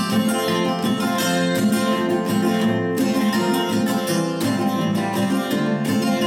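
Two acoustic guitars playing an instrumental duet, a nylon-string classical guitar and a capoed steel-string acoustic, both picked in steady flowing runs of notes.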